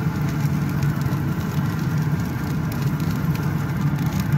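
Wood pellet grill's fan running with a steady low hum.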